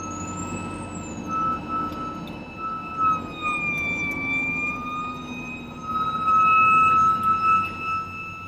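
Fire engine siren sounding a steady high tone that dips slightly in pitch midway and swells louder about six seconds in, over the low rumble of the truck's engine while it drives.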